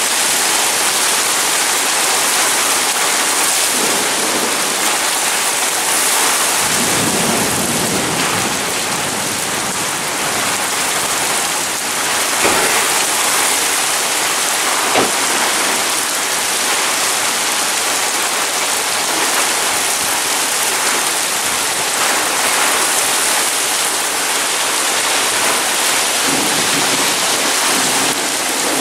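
Heavy rain pouring steadily onto pavement and parked cars, a dense, even hiss. A low rumble swells about seven seconds in, and there are a couple of sharp ticks a little later.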